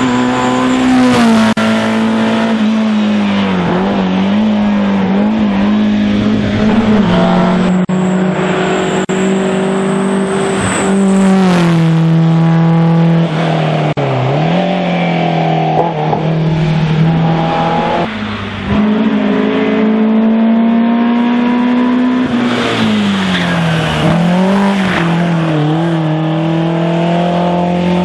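NSU TT saloon race cars' air-cooled four-cylinder engines running hard at high revs on a hill climb, two or three cars in turn. The engine note climbs and then drops sharply several times, at gear changes and braking for the bends.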